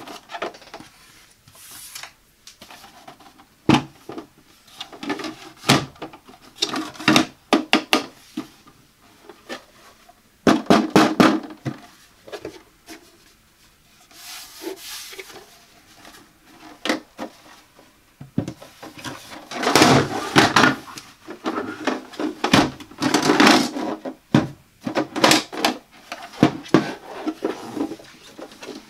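Hands handling and turning over a plastic coffee pod drawer unit: many separate clicks and knocks, with stretches of scraping and rubbing against the plastic body, loudest about ten seconds in and again around twenty seconds in.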